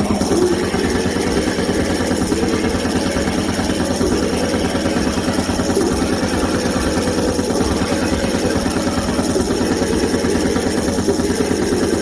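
Harsh noise wall music: a steady, loud, dense mass of distorted static spread across the whole range, with a fast fine throb in the low end that never lets up.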